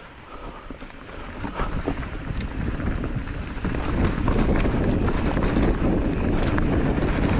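Wind buffeting the microphone over the rumble and scattered clicks of a mountain bike rolling down a trail, getting louder about three to four seconds in as the bike picks up speed.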